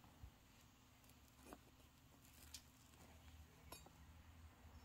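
Near silence with room hum, broken by four faint, short clicks or taps spread about a second apart.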